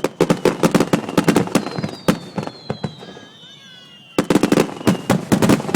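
Starmine fireworks barrage: a rapid run of sharp shell bursts, several a second, with a high whistling tone sliding down in pitch. The bangs ease off about three seconds in, then start again densely about a second later.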